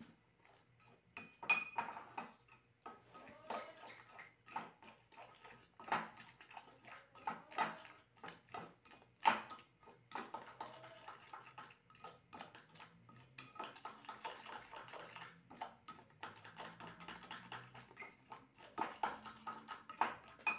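A metal utensil beating eggs and flour into omelet batter in a ceramic bowl: quick irregular clinks and scrapes against the bowl, with a few louder strikes.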